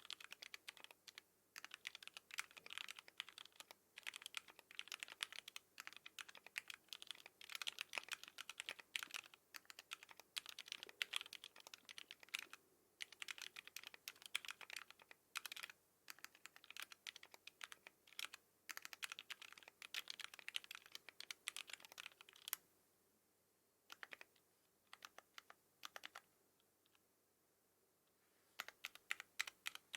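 Continuous fast typing on a custom mechanical keyboard (ION x ai03 Equinox case with housing-lubed Alpaca linear switches and GMK Metropolis keycaps): a dense run of keystroke clacks. After about 22 seconds it stops, with only a few short flurries of keystrokes, then steady typing resumes near the end.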